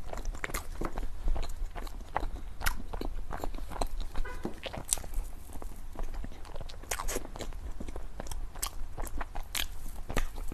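Close-miked eating of a dessert: biting and chewing with irregular crisp crunches and wet mouth clicks.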